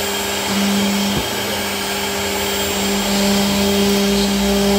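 CNC router spindle running steadily as its bit mills grooves into a flat board: a constant machine hum with a hiss of cutting. A lower hum swells in two spells as the cutter works, with a single short tick about a second in.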